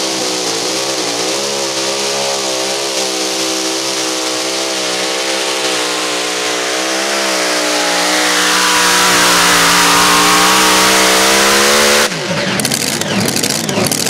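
Mini rod pulling tractor's engine screaming at full throttle as it pulls the sled down the track. The pitch climbs and wavers in the first few seconds, then holds high and steady. The sound cuts off suddenly near the end, giving way to scattered clicks and noise.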